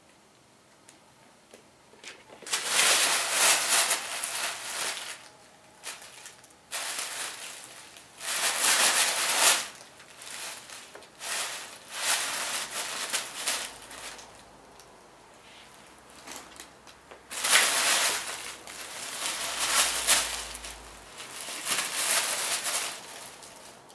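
Tissue paper rustling and crinkling in repeated loud bursts as a Siberian cat rolls, pounces and thrashes in it. It begins about two seconds in.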